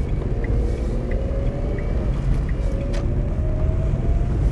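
Vehicle engine and road rumble heard from inside the cab as it pulls away from a junction and accelerates, with a slowly rising whine. The turn indicator ticks about every two-thirds of a second until about halfway, and there is one sharp click near the end.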